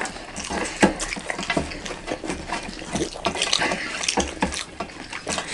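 Wet eating sounds: fingers squishing and scraping rice and daal on metal plates, with chewing and mouth noises, as a run of short irregular clicks and squelches.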